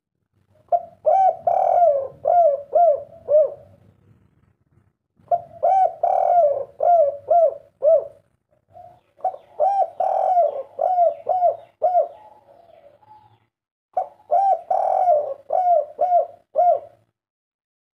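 Spotted dove (tekukur) cooing: four bouts, each a quick run of about five or six rising-and-falling coos, with a short pause between bouts.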